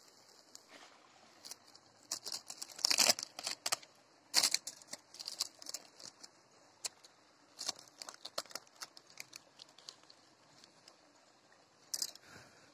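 Dry crackling and rustling of a charred leaf wrapping as an ember-roasted leaf parcel of chicken is pulled open. The crackles come in quick irregular clusters, thickest in the first few seconds, then sparser.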